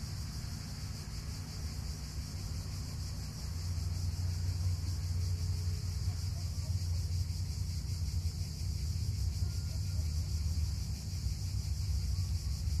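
Low, steady rumble, like a city's distant hum, with a constant high hiss over it; it grows a little louder about three and a half seconds in.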